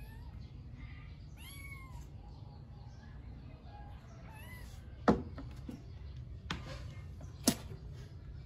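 Domestic kitten mewing: several short, high mews that rise and fall in pitch. In the second half come a few sharp knocks, two of them loud.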